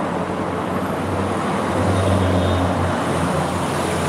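Steady outdoor urban background noise with a low rumble that swells a little about two seconds in.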